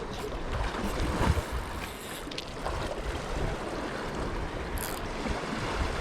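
Wind gusting against the microphone over a steady wash of sea noise, with a brief rustle near the end.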